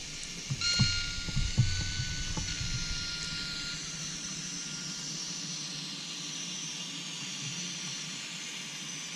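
Model Swiss Ae 6/6 electric locomotive hauling a freight train: a steady horn tone sounds for about three seconds shortly after the start, with a few low knocks, then a steady hissing running noise with faint rising and falling whine as the train rolls past.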